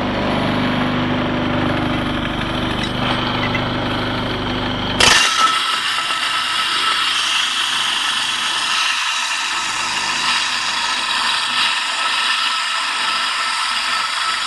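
Steady scraping of a T-25 tractor's warped valve cover being rubbed by hand on an abrasive stone, to flatten the sealing edge that let oil leak past the gasket. About five seconds in the sound changes abruptly: the low part drops out and a higher, hissing rasp goes on.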